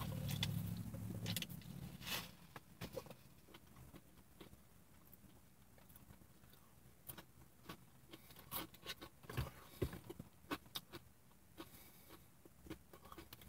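Soft eating sounds: a sip of soda through a straw, then faint chewing of tater rounds with scattered small clicks and crinkles from a paper food sleeve.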